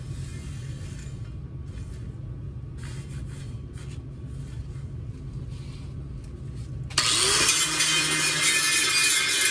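A low steady hum, then about seven seconds in an electric angle grinder starts up with a short rising whine and runs loudly, grinding on the welded steel ring.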